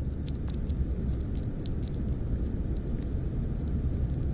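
Underwater pond ambience: a steady low rumble with scattered small clicks and ticks.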